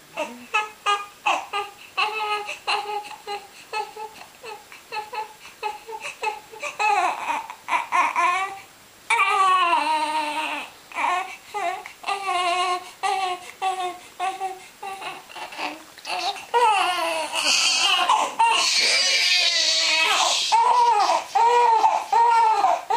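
Newborn baby crying: short, rhythmic cries about two a second that build, from about seven seconds in, into longer, louder wails, loudest near the end.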